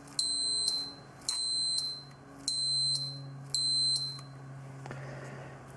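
Small piezo electronic buzzer of a home-made low-primer alarm beeping, four high-pitched beeps about one a second, then stopping. The infrared beam across the primer chute is unblocked, which signals that the primer supply is low.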